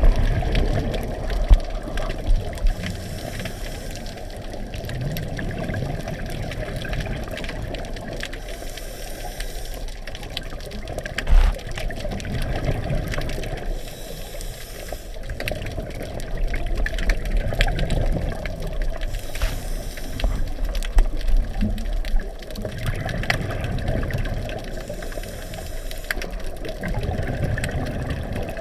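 Underwater scuba diving sound: a diver's regulator breathing, with a hiss about every five seconds and low bubbling rumble between breaths.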